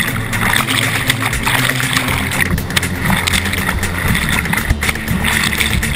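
Rushing white water splashing around a slalom kayak as it runs the course, heard from a camera on the boat.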